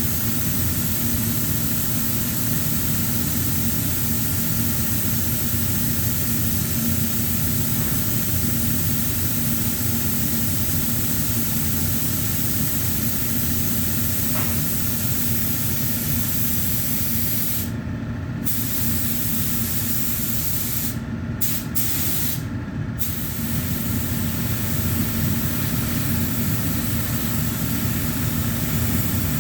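Pneumatic spray gun hissing steadily as it sprays primer. The high hiss cuts out briefly four times in the second half, as the trigger is let off, while a lower steady hum carries on.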